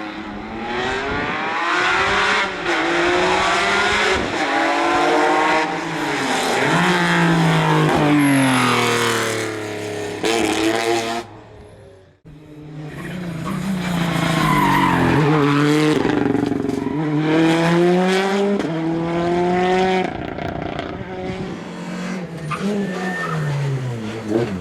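Rally cars at full speed on a special stage, engines revving hard and rising and falling in pitch through repeated gear changes and downshifts as they come through. The sound cuts off abruptly about halfway, and a second car follows with the same pattern of revving and shifting.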